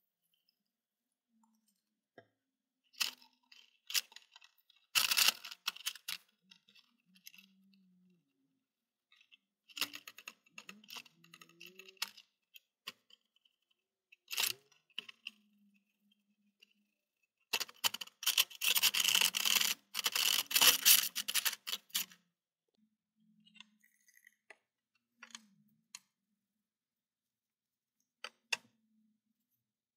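Intermittent handling noises: scattered sharp clicks and short bursts of rustling or scraping, the longest and loudest lasting several seconds a little past the middle, with silence between.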